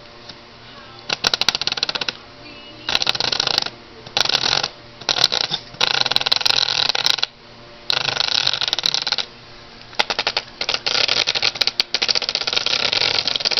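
Brushless motor of a new Dragon Hobby Sky Surfer RC glider, propeller fitted, run in about eight on-off bursts lasting from half a second to nearly three seconds. Each burst carries a fast clicking rattle that the owner suspects is a factory fault in the motor.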